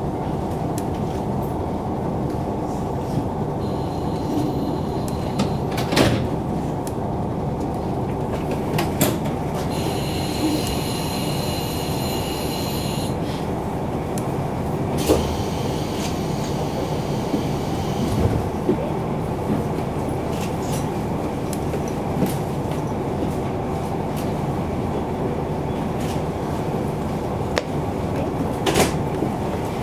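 KiHa 40 diesel railcar running, heard from inside the car: a steady low rumble of engine and wheels on rail, with a few sharp knocks along the way. About nine seconds in, a high squeal sounds for about four seconds.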